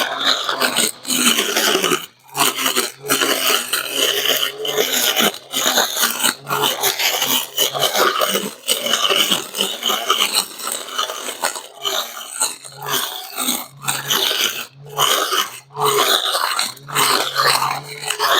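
Cordless battery-powered brush cutter cutting grass. The sound comes in irregular spurts with brief breaks every second or two as the line meets the grass and eases off.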